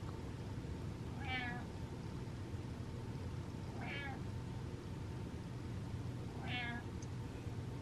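Domestic cat giving three tiny, high-pitched meows, each short and spaced about two and a half seconds apart.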